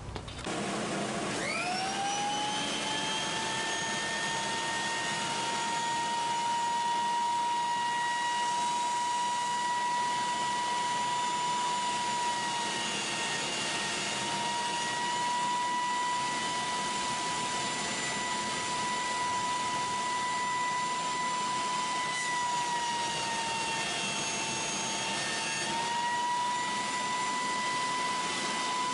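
Carbatec 200 mm benchtop jointer switched on, its motor spinning up quickly to a steady high whine. The whine sags in pitch and a rough cutting hiss joins it as hardwood is fed across the cutterhead at a 0.5 mm depth of cut, most clearly near the end.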